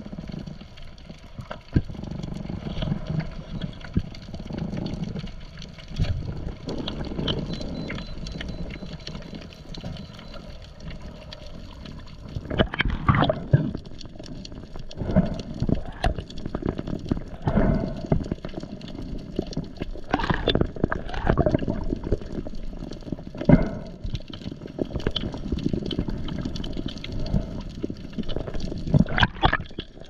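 Water heard underwater: a steady low rumble with faint scattered clicks. From about halfway on, short louder swishes of moving water come every two or three seconds.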